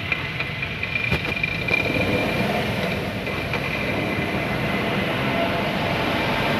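WagonR hatchback on the move: steady road and drivetrain noise with a clattering grind (kachar kachar) from a worn bearing, which the mechanic traces to the gearbox and the rear wheel.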